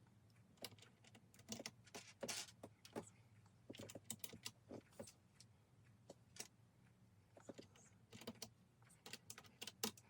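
Faint, irregular plastic clicks and clacks of keycaps being pressed back onto the brown switches of an RK61 60% mechanical keyboard, over a low steady hum.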